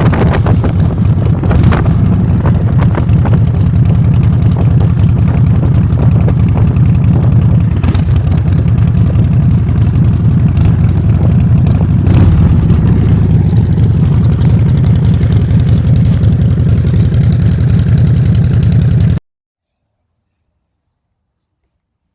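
Motor scooter engine running while being ridden, under heavy wind rumble on the microphone. The sound cuts off suddenly to dead silence about nineteen seconds in.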